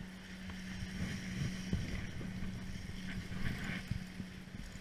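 Wind rumbling on the microphone over the wash of surf breaking on jetty rocks, with a steady low hum underneath and irregular low bumps in the first half.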